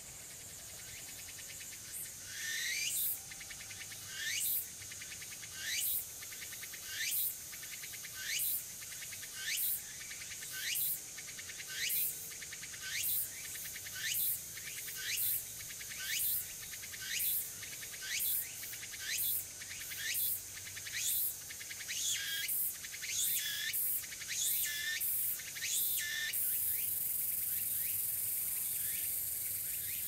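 Tsukutsukuboshi cicada (Meimuna opalifera) singing: a steady run of repeated phrases about one a second, each rising in pitch, which quicken and double near the end, then give way to a continuous high buzz.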